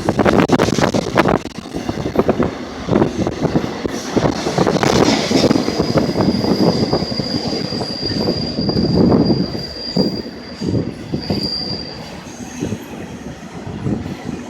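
Passing train, its steel wheels clattering and rumbling over the rail joints. A thin, high, steady wheel squeal runs from about five seconds in until about twelve seconds.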